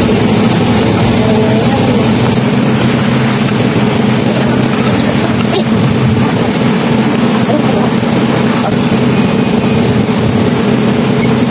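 A steady, loud mechanical hum with a hiss over it, like a motor running, unchanging throughout.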